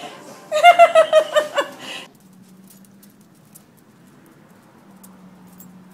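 A second or so of repeated short, high-pitched voice sounds, then an abrupt cut to a faint steady low hum.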